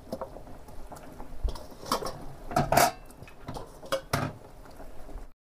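Pieces of pork being washed by hand in water in a stainless steel bowl: scattered knocks and clinks of the meat and fingers against the metal bowl. The sound cuts off suddenly near the end.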